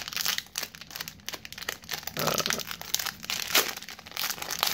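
Foil wrapper of an Upper Deck hockey card pack being torn open and crinkled by hand, a run of crackles with a few louder ones about two and three and a half seconds in.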